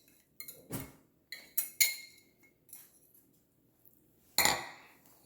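Kitchen dishes and utensils clinking as wet ingredients are added to a mixing bowl: several light clinks with a faint ring, and a louder clunk about four and a half seconds in.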